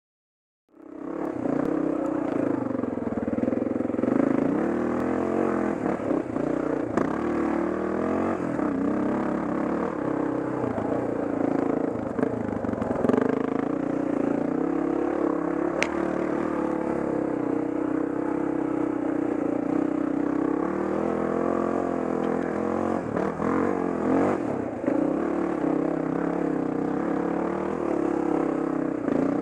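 Dirt bike engine running under a rider's throttle, its pitch rising and falling as it climbs a rough forest trail, with a few sharp clicks and clatter from the bike over the ground. It fades in about a second in.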